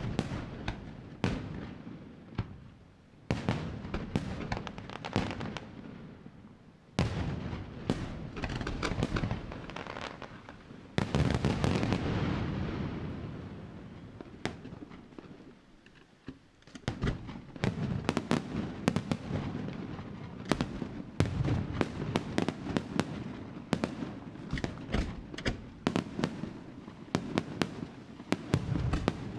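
Aerial fireworks display: shells bursting in quick succession with crackling and sharp bangs. A big loud burst about eleven seconds in dies away over several seconds, and dense rapid bangs fill the last part.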